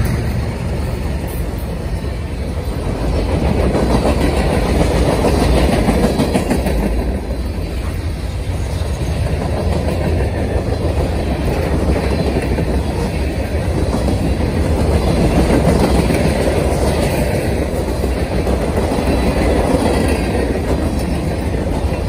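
A Norfolk Southern freight train passing: the last of its three diesel locomotives goes by at the start, then a string of freight cars, covered hoppers and a tank car, rolls past with the steady clickety-clack of wheels over the rail joints.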